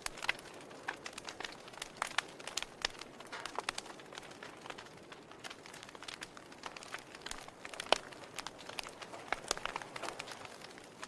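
Wood fire burning in a fireplace, the firewood crackling with irregular sharp pops and snaps over a soft steady hiss; one louder pop about eight seconds in.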